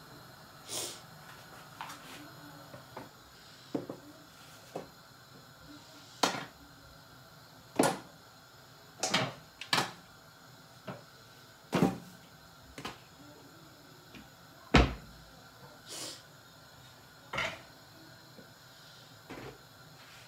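Irregular sharp knocks and clicks, about a dozen, over a low steady hiss; the heaviest, near three-quarters of the way through, is a low thump.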